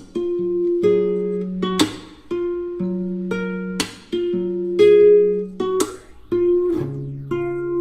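Background music: a light tune on plucked strings, in the manner of acoustic guitar or ukulele, with a strummed chord about every two seconds.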